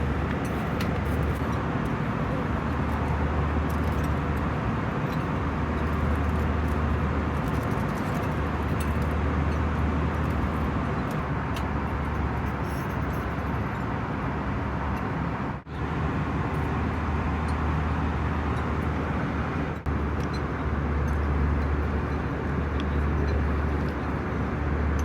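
Airbus A320 cabin noise in cruise: a steady rush of airflow and engine drone with a deep low hum. It briefly drops out twice in the second half.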